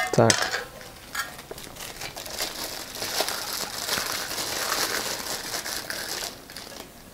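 Thin clear plastic bag crinkling and rustling as a wrapped blender part is handled and pulled out of it. It is steady and busy, and stops about six seconds in.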